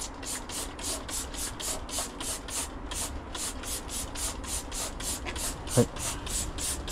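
Kao Kantan Mypet household cleaner sprayed from its trigger spray bottle, squeezed over and over in quick succession: a short hiss with each pull, about four a second.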